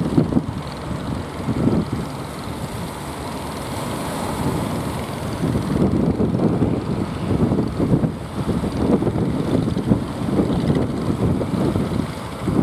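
Wind buffeting the microphone in uneven gusts over a low, steady rumble from a boat's engine.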